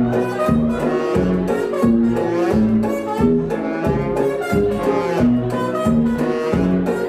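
1920s jazz dance tune playing with a steady bouncing beat of about two beats a second under held melody notes.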